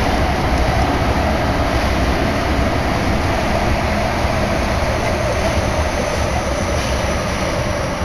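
Tokyo Metro Yurakucho Line subway car running through the tunnel, heard from inside the car: a steady rumble and roar of wheels on rail. A faint high whine joins in about halfway through.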